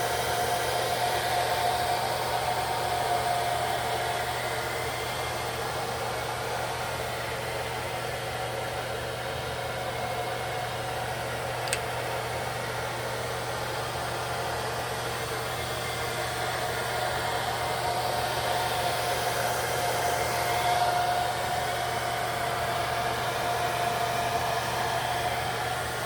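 Handheld hair dryer running steadily with a faint whine, blowing on a lace wig to dry the adhesive and melt the lace. A single brief click about halfway through.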